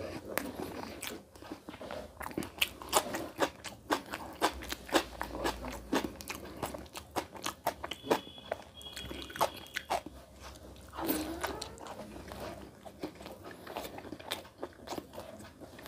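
Close-miked mouth sounds of a person eating curried boiled egg and chicken by hand: chewing with a quick run of wet smacks and clicks.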